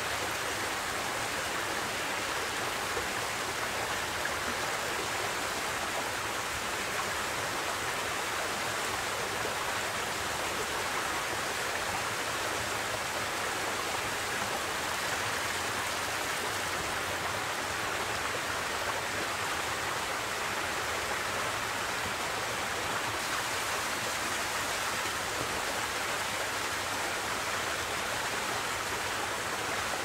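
A small stream spilling over rocks in a little cascade, a steady rushing of water.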